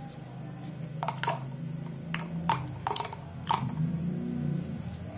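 Dried bhilawa (marking) nuts dropped by hand into an empty plastic jug: a run of about eight sharp clicks between one and three and a half seconds in.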